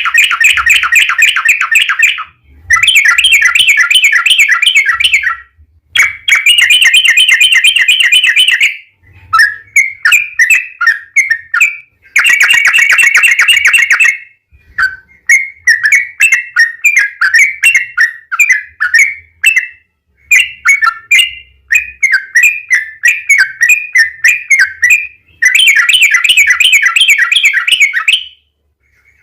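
Yellow-vented bulbul (trucukan) singing in long, rapid runs of repeated notes. The runs last two to three seconds each and are separated by brief pauses. In the middle stretch the song breaks into looser, separate chirping phrases.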